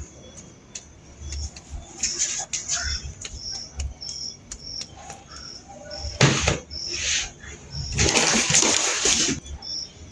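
A cricket chirping steadily, a short high chirp about twice a second, with a loud rushing hiss about six seconds in and a longer one of about a second near the end.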